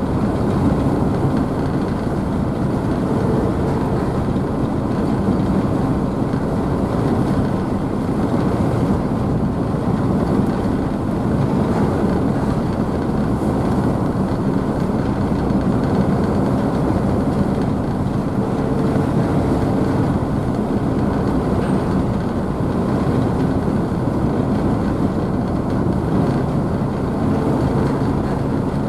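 Ferry's diesel engines running with a steady low rumble, mixed with the rushing of wake water and spray behind the stern.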